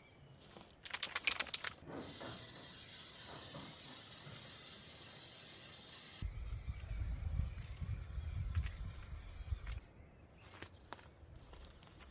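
Aerosol spray-paint can spraying a steady hiss for about eight seconds, after a brief rattle about a second in. A low rumble joins about halfway through.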